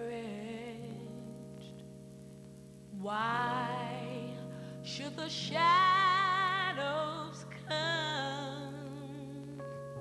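Background music: a slow song with held instrumental chords. A singing voice with wide vibrato comes in about three seconds in and sustains long notes, loudest in the middle.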